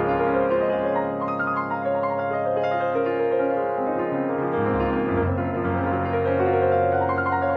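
Background piano music: sustained chords over a steady bass line.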